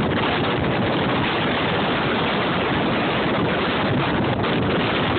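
Steady wind rushing over the microphone, mixed with the road noise of a moving car.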